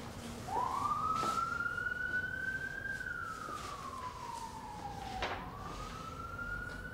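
Emergency-vehicle siren wailing: the tone sweeps up about half a second in, holds and climbs slowly, glides down over a couple of seconds, then sweeps up again about five seconds in. Two light knocks sound, about a second in and about five seconds in.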